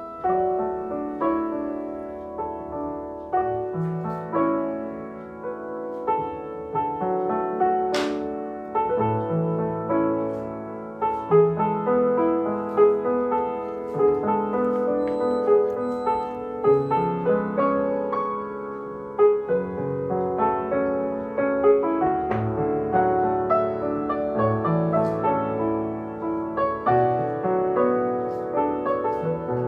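Background piano music: a gentle, unhurried melody over steady chords, with one light clink about eight seconds in.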